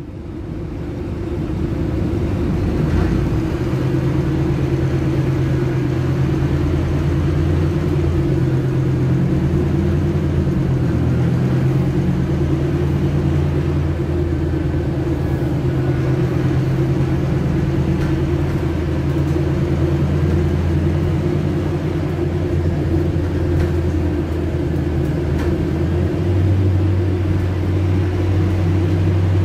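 Scania K250 UB city bus's five-cylinder engine running while the bus drives, heard from inside the passenger cabin. It is a steady drone whose pitch rises and falls with engine speed, with a sudden jump in pitch near the end.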